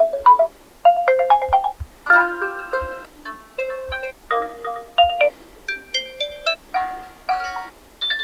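Realme Narzo 50 smartphone playing its built-in alarm tones: short melodic electronic chime tunes, one after another, the tune and pitch changing every second or two.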